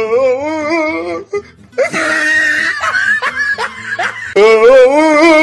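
A dog howling in long, wavering notes: one howl at the start and another near the end, with a noisier stretch between them.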